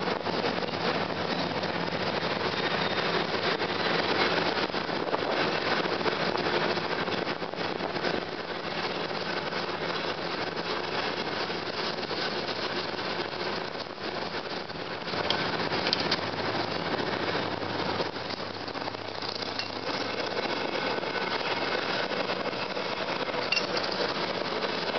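A San Francisco cable car on the California Street line under way, heard from aboard: a steady rumble of the car in motion.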